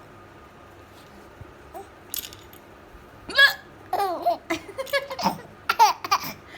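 A woman hiccups and a baby son laughs in reply, in a string of short, bubbling bursts from about three and a half seconds in.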